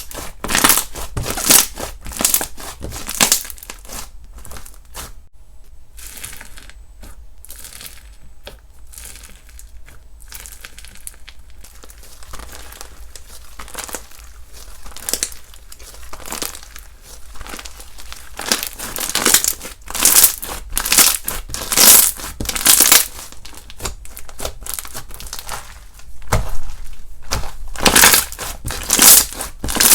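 Slime being squeezed, pressed and stretched by hand, giving dense crackling and crinkling sounds. It is quieter through the middle and grows louder and busier in the second half.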